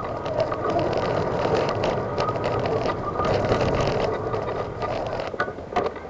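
Electric wheelchair driving along a path: a steady motor whine over the rumble and clicking of its wheels on the surface. It stops abruptly near the end.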